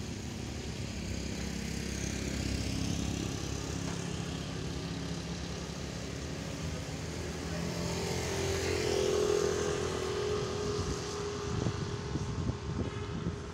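Road traffic passing, a steady engine rumble with tyre noise that swells about two-thirds of the way through, with a faint held tone at the same time.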